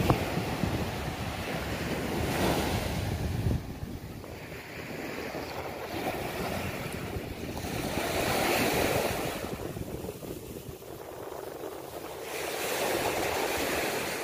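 Small sea waves breaking and washing up a sand beach, the surf swelling about every five seconds. Wind rumbles on the microphone in the first few seconds.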